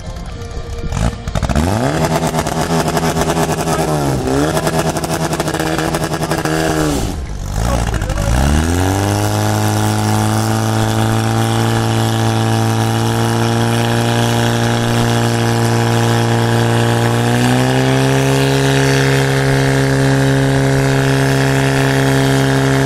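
Portable fire pump's engine started and revved hard, its pitch dipping twice in the first several seconds, then running steadily at high speed and stepping up higher about seventeen seconds in, while it drives water out through the hoses to the targets.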